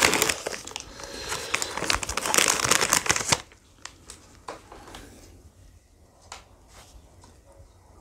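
Packaging wrapper of an ice cream crinkling and tearing as it is handled and opened, a dense crackle that stops abruptly about three seconds in; after that only a few faint small clicks.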